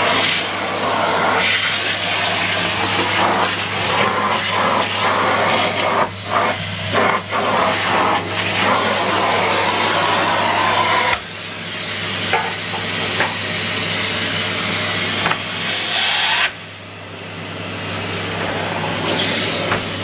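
Numatic Henry Blue cylinder vacuum cleaner running steadily with its floor nozzle on carpet, its motor humming under a loud rush of suction, with short crackles as oatmeal flakes are drawn up the hose. The suction sound drops suddenly about eleven seconds in and again near sixteen seconds, then builds back up.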